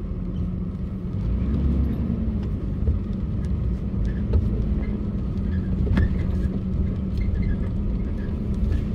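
A car driving slowly along a wet street, heard from inside the cabin: a steady low rumble with a constant hum, and a few sharp ticks.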